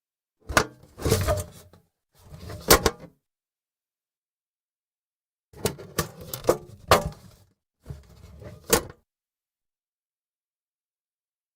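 Tin lunch box with a metal lid handled in four short bouts, each a clatter of sharp metal clicks, rattling and scraping as the lid is worked open and shut.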